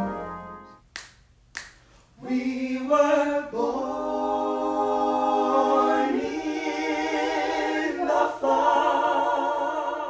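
An organ chord dies away, two finger snaps set the time, and a small group of singers comes in a cappella about two seconds in, singing together in harmony with short breaks between phrases.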